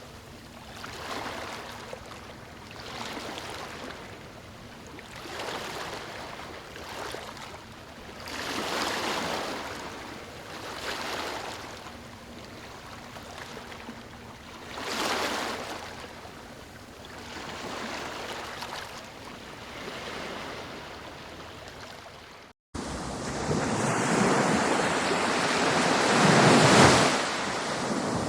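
Water washing in gentle swells about every two seconds. After an abrupt cut near the end, louder ocean surf with wind takes over.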